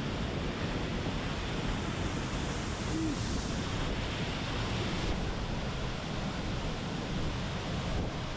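Waterfall close by, a steady, unbroken rush of falling water.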